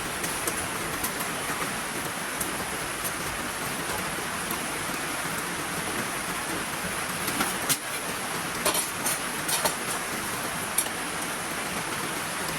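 Heavy rain falling in a steady downpour, with scattered sharp taps of drops striking a hard surface, several of them bunched together past the middle.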